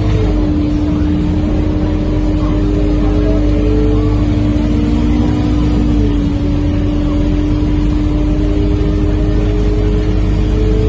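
Scania K230UB bus heard from inside the cabin while under way: a steady engine drone with the whine of its ZF automatic gearbox. The whine rises in pitch, drops about six seconds in, then climbs again.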